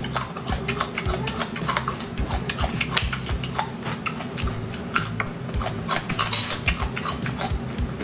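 Crunching and cracking of small raw crabs' shells being bitten and chewed close to the microphone, many crisp cracks a second in an uneven run.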